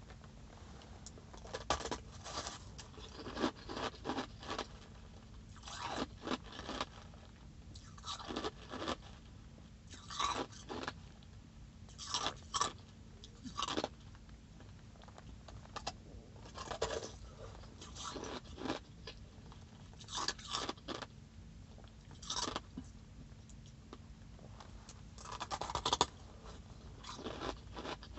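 Crunching of a solid block of ice being bitten and chewed, in clusters of sharp crunches every second or two.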